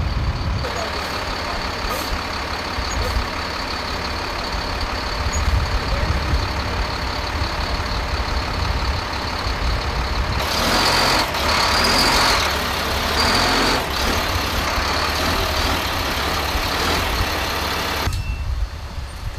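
HIMARS rocket-launcher truck's diesel engine running as it is driven slowly up the cargo ramp of a C-130J Super Hercules, with a steady high-pitched whine over it. About ten seconds in comes a louder stretch with hissing that lasts a few seconds.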